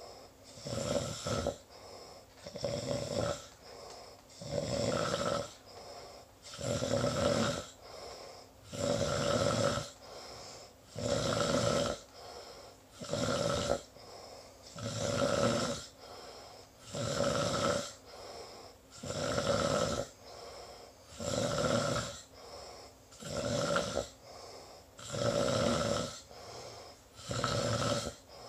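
Snoring in a steady rhythm, one loud snoring breath about every two seconds.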